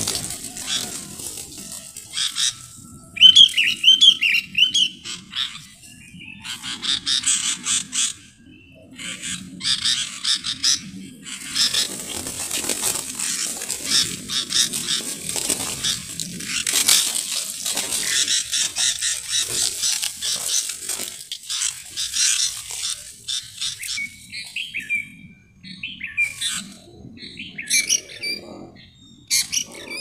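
Sooty-headed bulbuls fighting on the ground: wings flapping rapidly as they scuffle in dry leaf litter, with bursts of wavering bird calls about three seconds in and again near the end.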